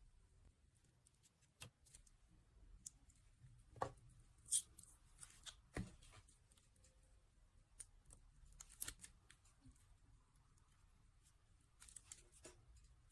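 Faint handling of a squishy stress-relief toy: scattered sharp clicks and short crackly rustles, a few of them louder around four to six seconds in and again near nine seconds.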